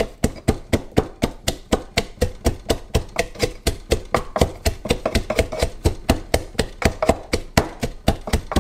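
Garlic cloves and salt being crushed in a pilón (mortar and pestle): a steady run of hard pestle blows, about four or five a second.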